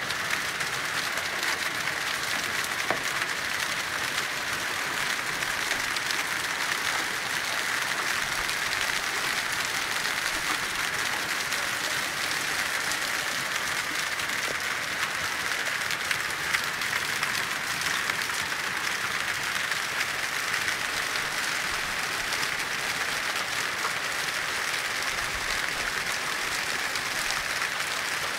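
Hailstorm: hail falling on stone paving and ground, a steady, dense hiss of countless small impacts that does not let up.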